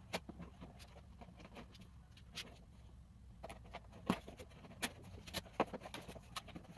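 Irregular clicks and light rustles of plastic cable ties being threaded through holes drilled along a crack in a wheelbarrow tub and pulled tight. The sharpest clicks come in a cluster from about halfway through.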